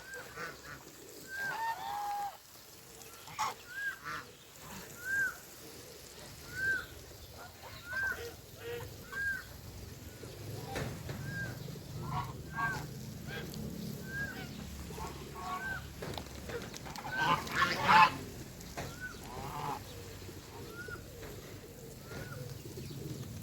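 Domestic geese honking, short arched calls about once a second, with a louder cluster of several calls about three quarters of the way through. A low hum sits underneath in the second half.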